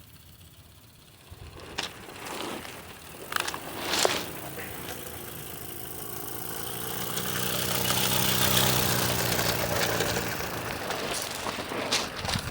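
Mamod Brunel MK II live-steam model tram engine running, its exhaust leak cured by an added exhaust adapter. A few sharp clicks come first, then its running sound with a mix of pitched tones swells to its loudest about two-thirds of the way through and eases off again.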